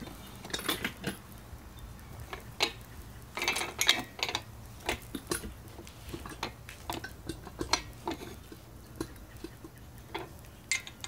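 Irregular light metallic clicks and clinks from an assembled Honda B18 short block being handled and turned over, some in quick little clusters.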